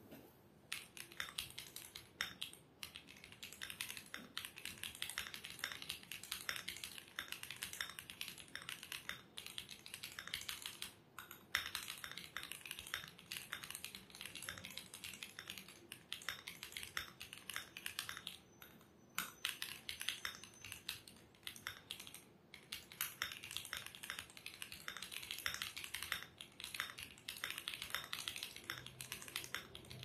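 Fast typing on an Akko ACR Pro 68 gasket-mount mechanical keyboard with Wuque Studio WS Red linear switches, a polycarbonate plate, and plate and PCB foam. A dense run of keystrokes with a few brief pauses.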